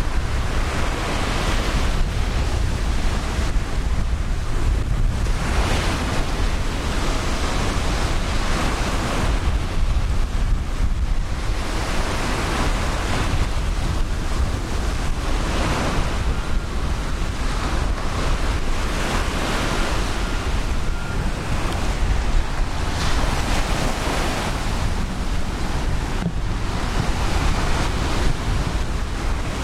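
Ocean surf breaking and washing up on a beach, the rush of water swelling every few seconds. Wind buffets the microphone underneath with a steady low rumble.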